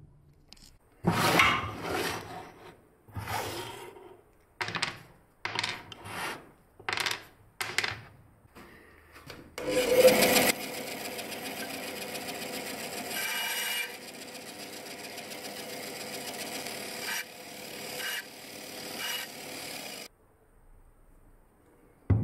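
A series of short scraping strokes on wood. About halfway through a bandsaw starts and runs steadily, with a few louder passes as it cuts short lengths off a wooden dowel, then cuts off suddenly near the end.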